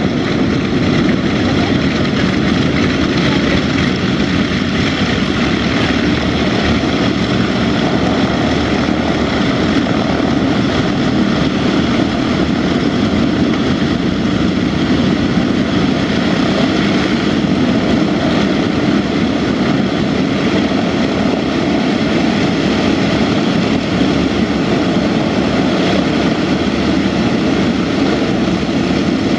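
Martin Mars flying boat's four Wright R-3350 eighteen-cylinder radial engines and propellers running as it taxis on the water, a low, even drone that holds steady throughout.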